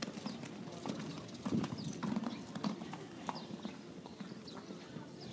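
Hoofbeats of a ridden horse cantering on a sand arena: a run of dull, uneven thuds.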